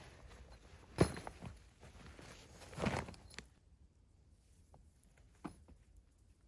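Footsteps and rustling on the ground, with a couple of heavier thuds in the first three seconds. After that it goes quieter, with a single sharper knock about five and a half seconds in.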